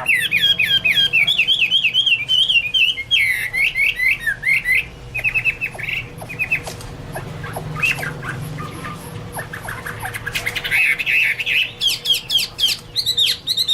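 Chinese hwamei (Garrulax canorus) singing: fast runs of repeated whistled notes that slide downward, changing phrase every second or two. The song thins to scattered notes through the middle and picks up into dense runs again near the end.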